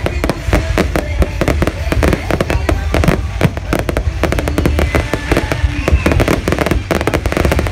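Fireworks going off in a dense, continuous barrage: many rapid bangs and crackles overlapping over a steady low rumble.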